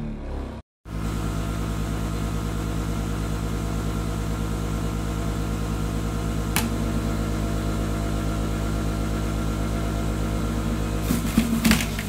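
Bosch 700 W centrifugal juicer's motor running steadily with no load, a constant hum, after a short break in the sound under a second in. In the last second, bursts of grinding start as a carrot is pushed down the feed chute into the cutting disc.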